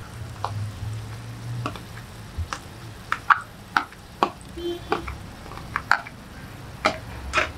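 A metal spoon tapping and scraping on a ceramic plate as boiled potato pieces are scooped into a frying pan: a dozen or so irregular clicks. A faint sizzle of the pan on high heat runs underneath.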